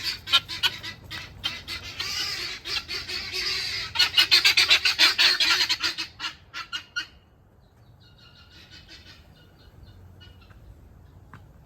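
Guinea fowl hollering: a fast, harsh run of cackling calls at about seven a second, loudest about four to six seconds in. The calls break off about seven seconds in, leaving a few faint calls. The birds are agitated by intruding wild guineas.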